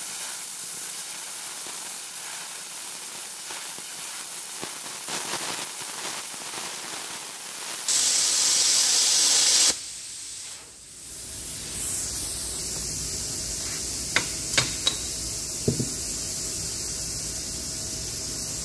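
Arccaptain Cut 50 plasma cutter cutting through 3/4-inch steel plate at 50 amps on 60 psi air: a steady hiss of the arc and compressed air. It turns louder and harsher for a couple of seconds about eight seconds in, dips briefly, then carries on as a steadier hiss with a few sharp clicks.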